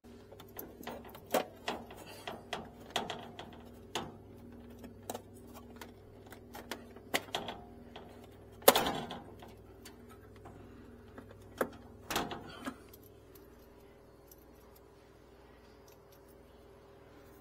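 Wires and plastic connectors being handled and pushed together by hand: irregular clicks, taps and light rattles, the loudest snap about nine seconds in and a few more around twelve seconds, then quieter handling.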